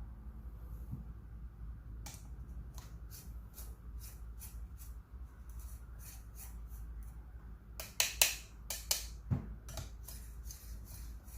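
Espresso grounds being distributed in a portafilter basket with a distribution tool: light, irregular metallic ticks and scrapes, with a denser, louder run of clicks about eight seconds in.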